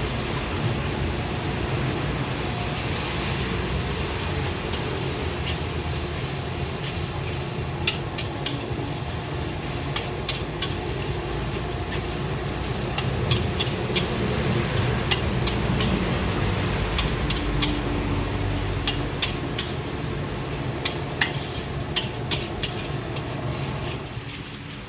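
Stir-frying in a wok: a steady sizzling hiss with scattered short metal clinks of a spatula against the pan.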